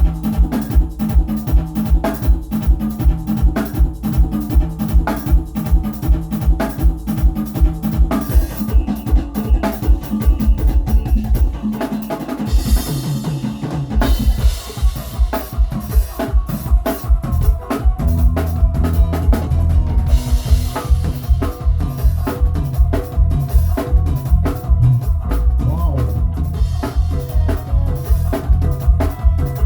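Drum kit played in a steady groove, the bass drum hitting about four times a second along with snare and rimshots, over music with a sustained bass line. About halfway through the beat breaks off briefly under a cymbal wash, then picks up again.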